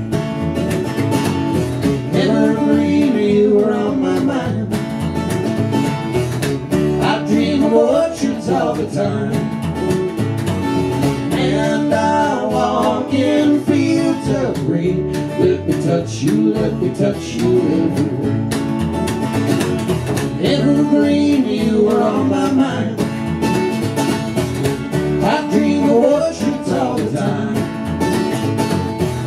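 Acoustic guitar and upright bass playing a country-style song live, with sung vocals.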